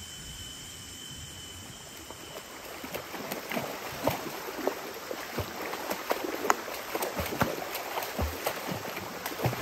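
Fast, shallow stream rushing over rocks, with choppy splashing as a Labrador puppy is held in the current for a bath. It starts about two and a half seconds in, after quiet outdoor ambience with a steady high tone.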